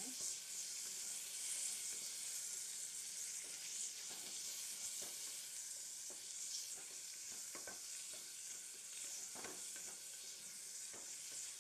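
Sliced onions sizzling in hot oil in an aluminium pressure cooker pot, being sautéed until half done. A wooden spatula scrapes and knocks against the pot at irregular moments while stirring them.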